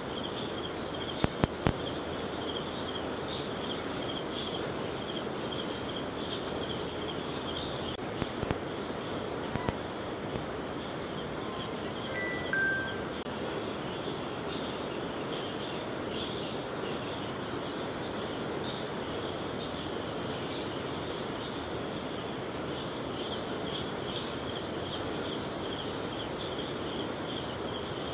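Steady, dense chorus of crickets and other insects, with a pulsing chirr under a continuous high whine, over the low rush of a river. A few sharp clicks come near the start and again about a third of the way in, and a short two-note whistle just before the middle.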